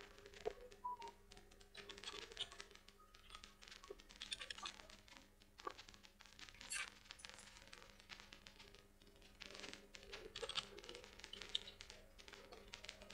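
Faint computer keyboard typing and mouse clicks: short clicks in small clusters, over a low steady hum.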